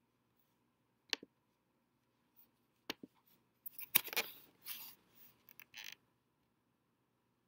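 Desk handling noise: sharp clicks about a second in and near three seconds, then a scraping rustle mixed with more clicks from about three and a half to six seconds, loudest near four seconds.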